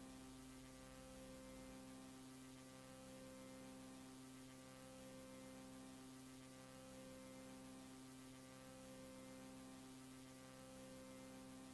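Near silence: a steady low electrical hum with faint hiss, the mains hum of the tape playback and transfer.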